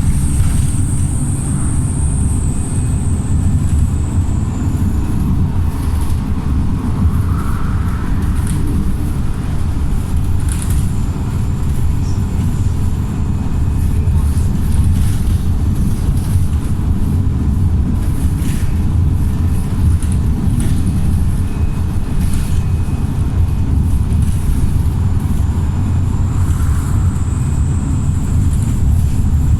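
Wright StreetLite single-deck bus's remapped diesel engine running steadily under way, a continuous low drone with a few short knocks or rattles and a faint high whine near the start and end.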